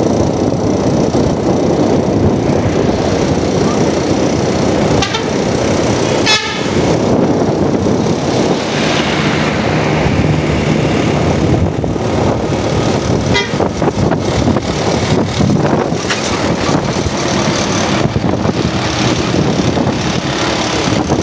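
Intercity bus convoy in traffic with loud, steady road and wind noise, and bus horns sounding several times: a rising blast about six seconds in, a longer held note a few seconds later, and shorter toots near the end.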